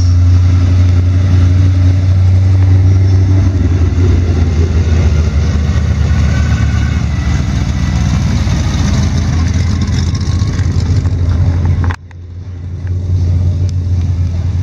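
Classic American muscle cars driving slowly past, with a loud, deep, steady exhaust note. The sound drops out suddenly about twelve seconds in and comes back within a second.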